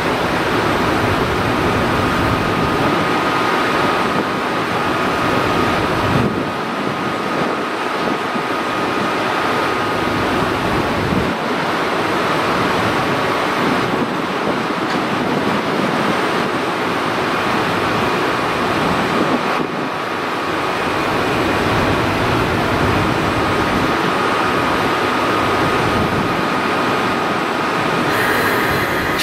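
JR Freight EF65 2000-series electric locomotive standing with its pantograph up: a steady whirring hiss with a faint thin whine running through it.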